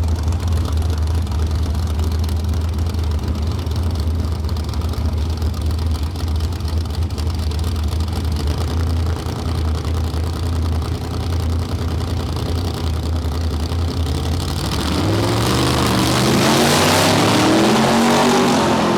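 Two drag-racing cars' engines running at the starting line with a steady deep rumble, then launching about fifteen seconds in, growing louder and climbing in pitch in repeated sweeps as they accelerate down the strip.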